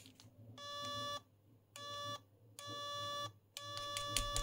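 Current-limit overload alarm of a homebrew 1979 dual linear bench power supply beeping. It gives four buzzy, mid-pitched beeps of uneven length, the last the longest. They sound because the shorted output has driven the supply into current limit.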